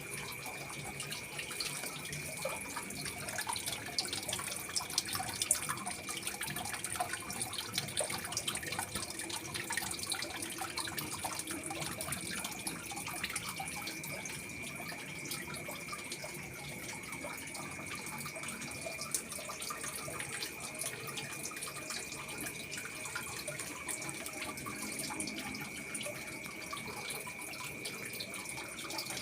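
Water running and trickling steadily, with a constant high-pitched whine alongside it.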